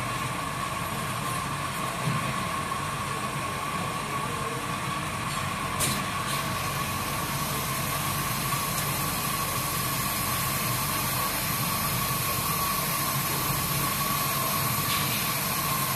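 Keg washing machine running through a test cycle: a steady hissing rush with a constant whine, and a couple of sharp clicks about two and six seconds in.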